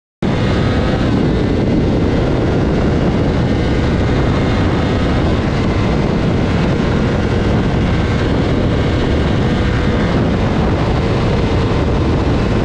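Honda CBR600RR's 599 cc inline-four with a Leo Vince slip-on exhaust running at high revs under full throttle, accelerating from about 200 toward 260 km/h. The engine is largely buried in heavy, steady wind rush over the microphone.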